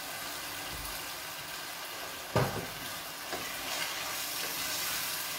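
Ragù of tomato and meat sizzling steadily in a steel pot on a gas burner as it is stirred. There is one sharp knock about two and a half seconds in, and a lighter one a second later.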